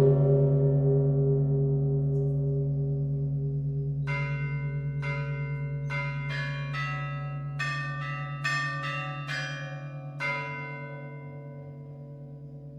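Russian Orthodox church bells ringing: a deep bell's hum dies away slowly with a pulsing beat, then about four seconds in smaller, higher bells strike a quick, uneven run of about a dozen notes that stops near ten seconds and rings on, fading.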